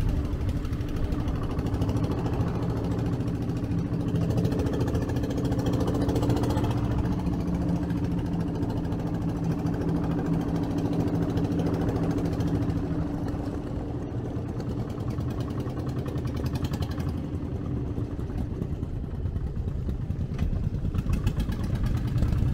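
Small passenger ferry boat's engine running steadily, heard from on board, with a steady low hum that eases a little about halfway through.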